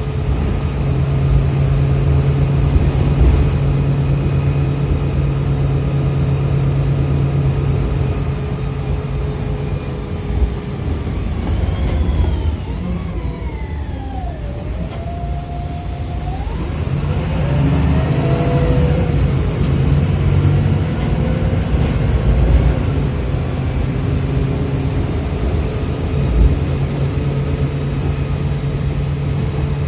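VDL SB200 single-decker bus with a Voith automatic gearbox heard from on board, its engine running steadily at first. About halfway through, a whine falls in pitch as the engine note fades while the bus slows. A few seconds later the engine picks up again with rising whines as the bus pulls away.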